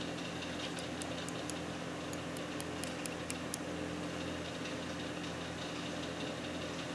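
Steady low machine hum, with a run of about a dozen light, sharp metallic clicks from about a second in to the middle, as steel pliers knock and grip on a steel bolt.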